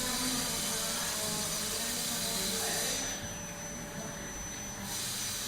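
Dental clinic treatment-room ambience: a steady high hiss of air or suction with a thin high whine in it, which stops for about two seconds a little past halfway and then starts again, over a faint murmur of voices.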